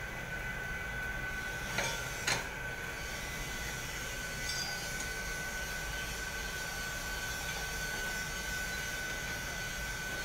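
Industrial boiler plant running: a steady machinery drone with a constant high whine, from the boiler's fans and motors. Two sharp knocks about two seconds in.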